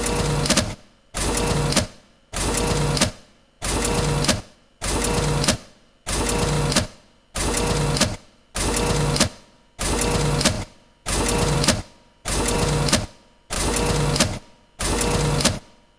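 Photocopier running through a run of copies: about thirteen even cycles, one sheet roughly every 1.2 seconds, each a second-long mechanical whir with a short pause between.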